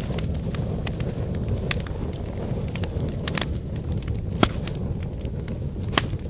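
Wood fire burning: a steady low rumble of flames with irregular sharp crackles and pops from the burning firewood, two louder pops about four and a half and six seconds in.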